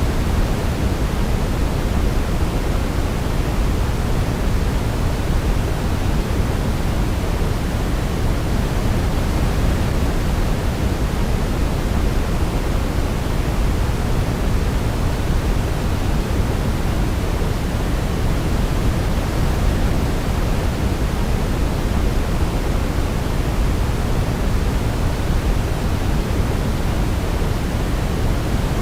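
Steady synthetic sleep noise, a constant hiss-like rush heavier in the low end than the highs (pink-noise type), with no change in level and no audible melody.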